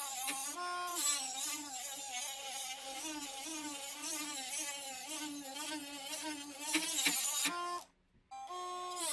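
Handheld rotary tool with an abrasive cut-off disc grinding lines into a steel hammer head: a high motor whine that wavers in pitch as the disc bites, over a grinding hiss. It breaks off for about half a second near the end, then runs again.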